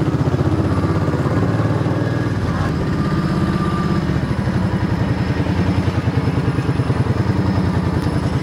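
Suzuki Boulevard cruiser motorcycle's engine running with a steady, low, even beat.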